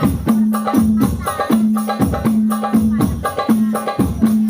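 Music with a steady beat: regular drum hits with a held low note between them, repeating in an even pattern.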